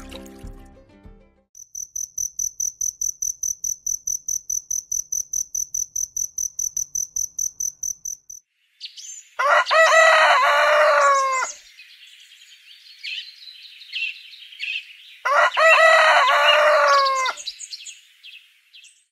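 Insect chirping in a fast, even high-pitched pulse, about five a second, for roughly seven seconds. Then a rooster crows twice, each crow about two seconds long, with small birds chirping between the crows.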